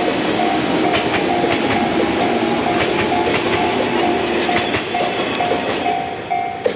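Yellow JR West 113 series electric train running past, its wheels clacking over rail joints in repeated clicks over a steady rumble that drops off near the end as the last car clears. A level-crossing warning bell rings in even repeated tones about twice a second throughout.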